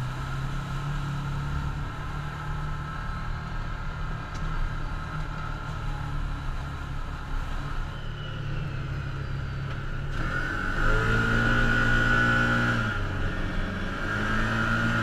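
Can-Am Commander side-by-side's V-twin engine running steadily under way, heard from the driver's seat. About ten seconds in it gets louder and higher as it accelerates, eases briefly, then picks up again near the end.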